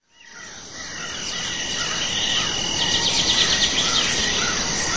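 Insects trilling steadily with birds chirping, a nature ambience that fades in over the first second.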